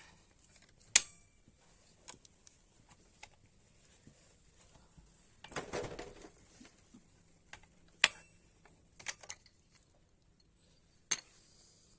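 Scattered sharp metallic clicks, the loudest about a second in, and a scrape of about a second midway, from hand work prying the rear drum brake shoes and their return springs off a moped's brake plate.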